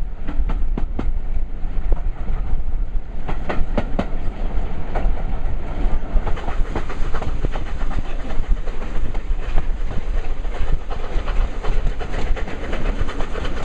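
Heritage railway carriage running along the line, heard from on board: a steady low rumble with the wheels clicking irregularly over the rail joints.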